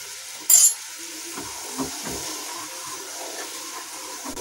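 Sugar syrup bubbling at a boil in a nonstick frying pan while a wooden spatula stirs it, with a steady hiss and a few soft knocks of the spatula. A short loud noise about half a second in. The syrup is being cooked down to one-thread consistency.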